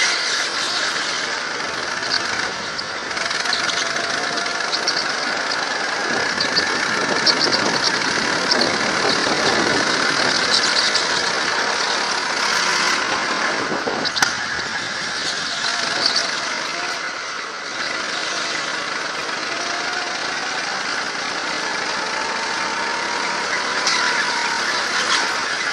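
Go-kart engines running hard through a lap, heard from a helmet camera with a steady rush of noise over them; the engine note rises and falls faintly with the throttle, and short tyre squeals come through the corners.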